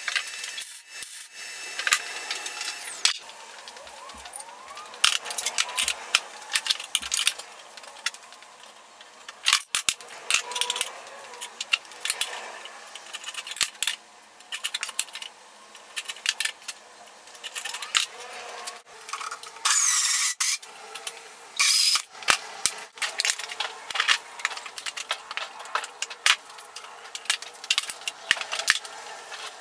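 Steel pieces and hand tools being handled on a workbench: scattered clinks, taps and scrapes of metal on metal, with a louder scrape lasting about a second around twenty seconds in.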